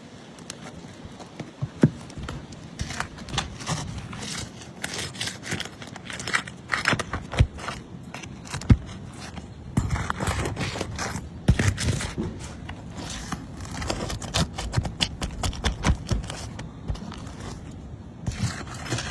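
Asphalt roof shingles being pried up and worked loose to get at the nails, giving irregular scraping and crackling with frequent sharp clicks and knocks.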